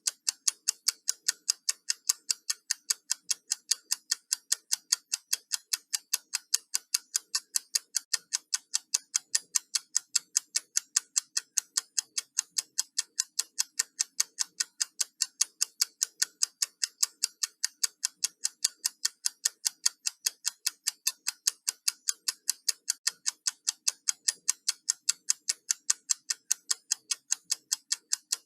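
Countdown timer ticking: fast, even, sharp ticks, several a second, with no change in pace.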